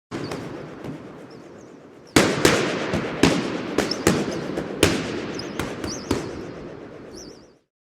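Sound effect of a string of sharp bangs over a crackling hiss, with faint warbling whistles; it starts suddenly, the bangs come from about two seconds in, and it cuts off shortly before the end.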